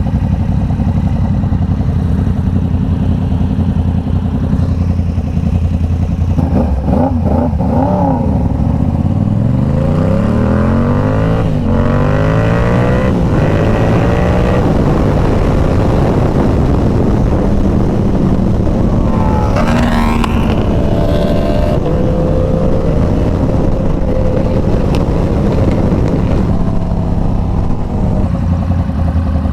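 Inline-four sport motorcycle engine running at low revs and blipped a couple of times. It then accelerates hard, the pitch rising through several quick upshifts, pulls hard again about two-thirds of the way in, runs steadier, and drops back to low revs near the end.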